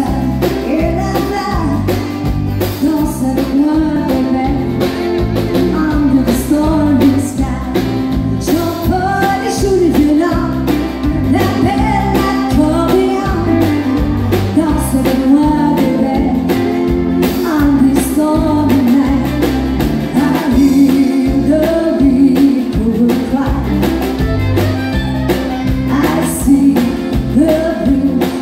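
Live country-style song: a woman singing lead while strumming an acoustic guitar, backed by a band with drums, keyboard and a stepping bass line, played through a PA.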